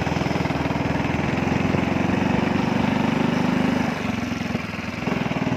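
Small motorcycle engine running steadily under way, easing off briefly about four seconds in and then picking up again.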